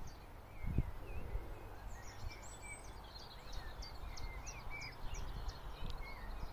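Small birds singing: quick, high repeated notes, about three a second, mixed with lower twittering chirps, over a steady low rumble, with one soft thump about a second in.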